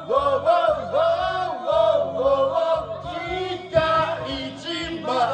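A man singing karaoke into a microphone over a backing track with a steady beat.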